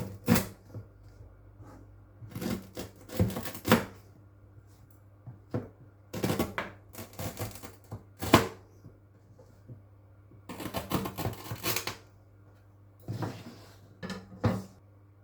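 Kitchen food-preparation handling noises: irregular clusters of clicks, knocks and clatter in short bursts with brief pauses, over a steady low hum.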